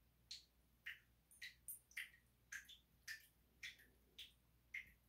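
Faint water dripping, short drops falling in a steady rhythm about twice a second.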